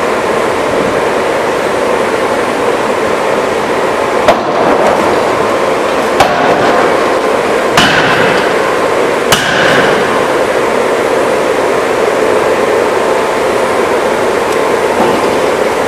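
Power forging hammer striking four heavy blows about one and a half to two seconds apart, the later blows ringing briefly, over a loud steady machinery din.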